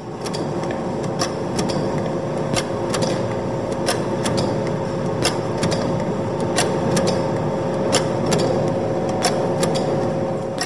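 Automated assembly-line machinery running: a steady mechanical hum with a couple of held tones, overlaid by frequent, irregular sharp clicks of the mechanism.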